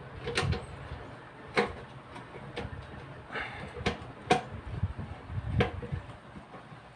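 Screwdriver and hands working on an opened rice cooker's body: about six sharp clicks and knocks over a few seconds, with dull handling thumps between them.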